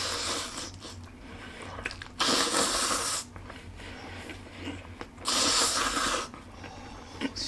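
A person slurping instant noodles from a bowl: two long, loud slurps, each about a second, the first a couple of seconds in and the second about three seconds later.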